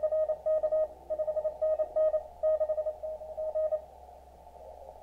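Morse code (CW) from a contest station heard through an Elecraft KX2 receiver: a single-pitch beep keyed in dots and dashes that stops about four seconds in, leaving faint receiver hiss.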